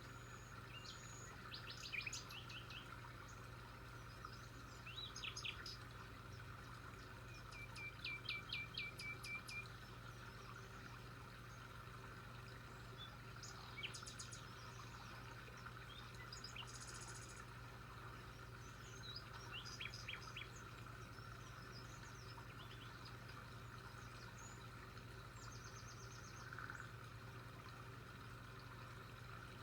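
Songbirds chirping and calling on and off, with short quick series of repeated high notes, over a steady faint low hum.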